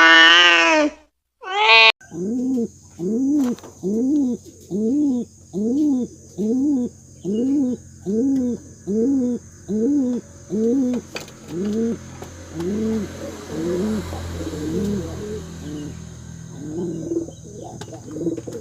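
A cat meows, a drawn-out wavering meow, in the first couple of seconds. Then pigeons coo in a steady run of short, low, arched notes, about one and a half a second, that turn uneven and overlapping toward the end.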